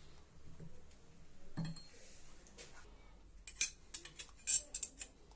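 Metal tools and engine parts clinking and tapping against each other, with a quick run of sharp metallic clinks in the second half.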